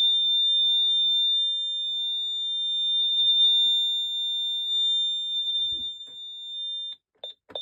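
Ademco LYNX-R alarm keypad's built-in sounder giving one continuous high-pitched alarm tone after its Medical emergency function is triggered. The tone cuts off about 7 seconds in, and a few short beeps at the same pitch follow as keys are pressed to disarm it.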